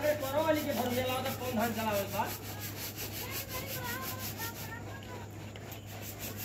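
Rubbing and rustling handling noise as a phone brushes against a long-haired dog's fur. A wavering, pitched, voice-like sound is heard over it for the first two seconds and again faintly around four seconds in.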